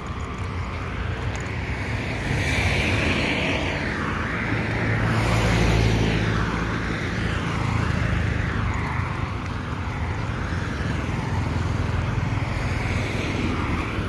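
Road traffic passing: cars driving by, their tyre and engine noise swelling and fading several times, loudest about six seconds in.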